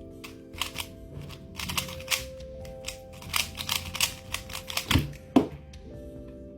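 Quick bursts of clicking and clacking from a MoYu Weilong V10 Ballcore UV speedcube's plastic layers being turned, with a sharp louder clack about five seconds in, over background music.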